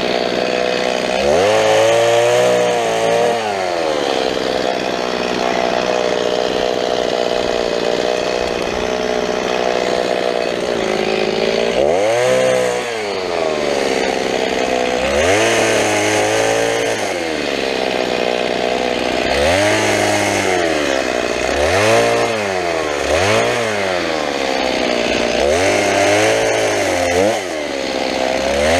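Petrol chainsaw running at high revs, cutting through branches. The engine note sags as the chain bites into each cut and climbs back as it comes free, over and over, with a longer steady stretch near the start.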